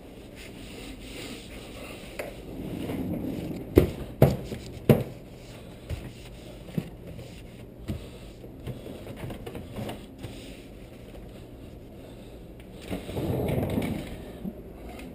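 Cleaning and handling sounds at a kitchen counter: rubbing and rustling, three sharp clicks about half a second apart around four seconds in, then lighter scattered knocks. A longer rustle comes near the end.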